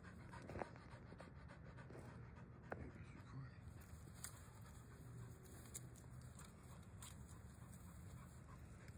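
Faint panting from an American Pit Bull Terrier, with a few light clicks scattered through.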